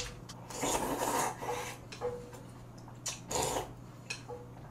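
Spoon scraping rice from a bowl: two main rasping scrapes, about half a second in and again a little past three seconds, with smaller scrapes between.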